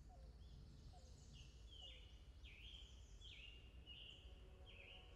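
Faint wild birds calling. A string of short, repeated sweeping calls comes about once every second, with lower short calls in the first couple of seconds, over a low rumble.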